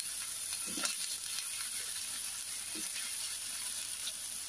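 Raw potato sticks frying in hot oil: a steady sizzle with a few faint crackles.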